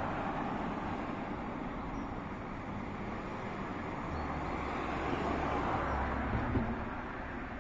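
Road traffic: a steady wash of passing cars that swells twice, with a low engine rumble from about four to six and a half seconds in.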